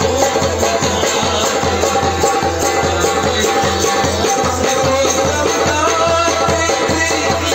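Live folk ensemble playing: a harmonium holding sustained tones, a hand drum struck in a steady rhythm, and a sliding melodic line over them.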